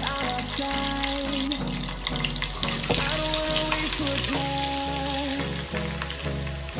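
Curry leaves and green chillies sizzling in hot oil in a frying pan, with sliced onion dropped in about halfway through. Background music plays over it.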